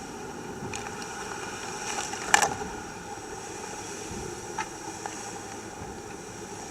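Steady rush of water and wind aboard a Volvo Ocean 65 racing yacht sailing hard in heavy seas, with one loud sharp splash or slam a little over two seconds in and a couple of faint knocks.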